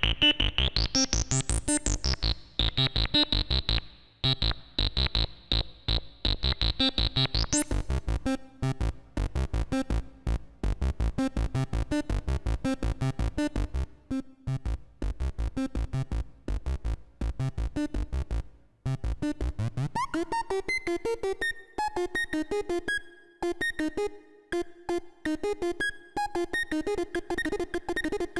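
Kassutronics VCO 3340 analog Eurorack oscillator playing a fast sequenced synth line of short, bass-heavy notes, with a bright sweep rising in the first couple of seconds. About twenty seconds in the patch changes to a higher, thinner melodic pattern.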